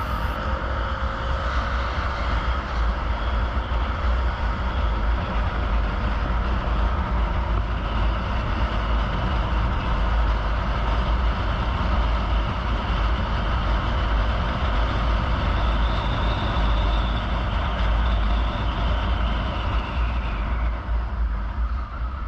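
A vehicle running, a steady low engine rumble with road noise that carries on without a break.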